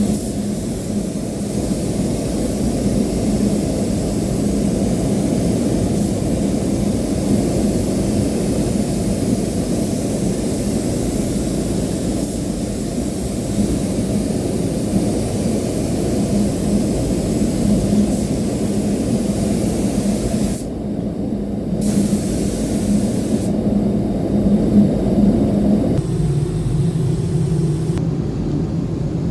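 Paint spray gun hissing with compressed air over a steady low machine hum. The hiss breaks off for about a second about 21 seconds in, and again near the end, while the hum carries on and changes pitch about 26 seconds in.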